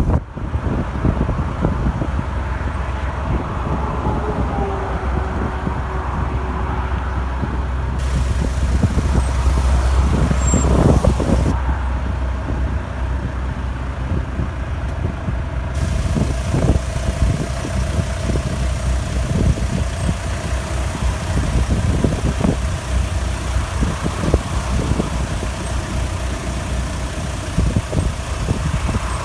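Opel Frontera B's 2.2 DTI four-cylinder turbodiesel idling, with a strange squeal over it: a thin tone that wavers in pitch at first, then holds steady from about a third of the way in. The squeal's cause is not known; it comes mostly at idle.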